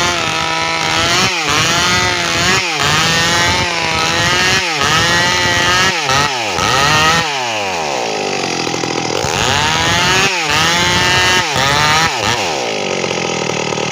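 Stihl MS 382 two-stroke chainsaw ripping through a waru log, its engine pitch dipping and recovering about every second and a half as the chain loads in the wood. There is one longer, slower dip around the middle, and the engine settles to a lower pitch near the end.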